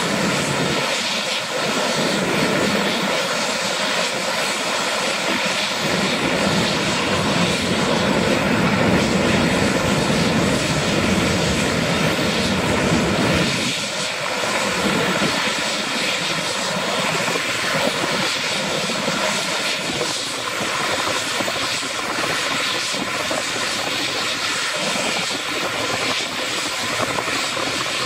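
A Eurocopter EC145 (MBB/Kawasaki BK 117 C-2) helicopter running on the ground: its twin turbine engines give a steady whine as the rotor turns. A lower rumble under the whine drops away about halfway through.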